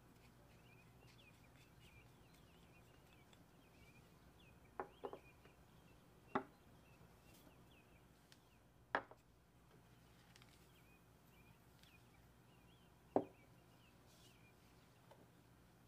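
Spoon and small dish tapping against a glass mixing bowl as chili powder and chili flakes are added: a quick pair of sharp taps about five seconds in, then three single taps a few seconds apart, over a faint hiss.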